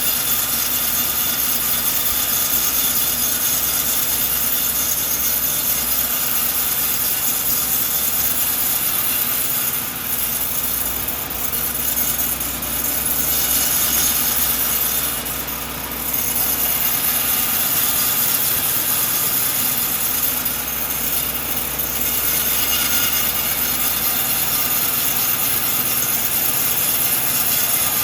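Sawmill blade cutting steadily through a coconut log, with a few brief dips in level partway through.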